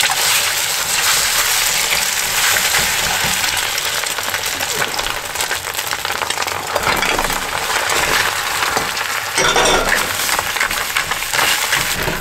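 Cracked eggs frying in bacon grease in a hot pan: a steady sizzle, with chopsticks clicking against the pan. The sizzle flares louder as more eggs, shells and all, are tipped in.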